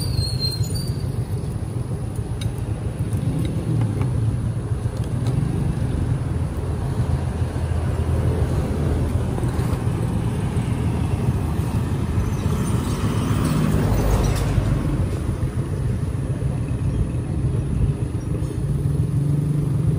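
Steady low rumble of road traffic, with one vehicle passing close by and loudest about two-thirds of the way through.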